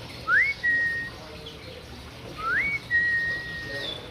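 A bird whistling twice: each call is a quick upward slide followed by a held steady note, the second held note longer than the first.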